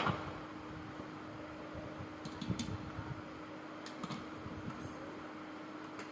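A steady low hum with faint hiss, and a few light clicks and knocks about two and a half seconds in and again around four to five seconds in.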